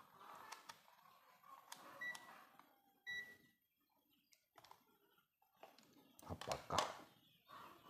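Digital multimeter beeping as its rotary dial is switched over: a short beep about two seconds in and a slightly longer one about three seconds in. Near the end come clicks and rustling of hands handling the wiring.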